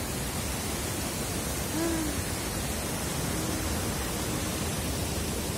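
Water spilling over a small stepped cascade into a pond: a steady rushing.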